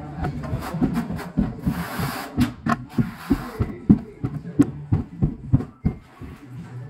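An irregular run of short, dull thumps and knocks, several a second, from floor-tiling work on a concrete floor. The knocks die away about six seconds in.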